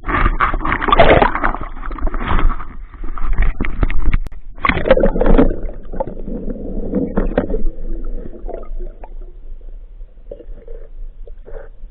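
Muffled water noise, probably as heard through an underwater camera housing: irregular gurgling and sloshing surges, louder in the first half, with one sharp click about four seconds in.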